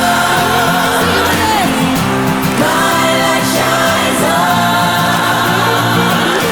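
Live concert music with singing, loud and steady throughout.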